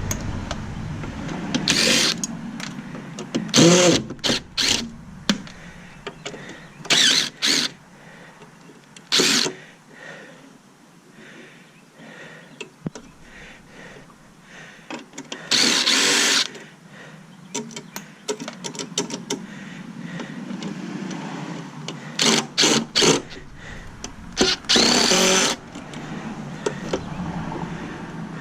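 Power drill or driver running in short bursts, about eight times, backing screws out of a metal equipment case. Fainter clicks and handling noises of the parts come between the bursts.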